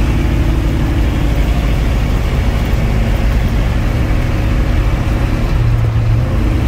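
A 1967 Pontiac LeMans heard from inside the cabin while driving at a steady cruise: a low, steady engine drone with tyre and road noise. The engine note swells briefly near the end.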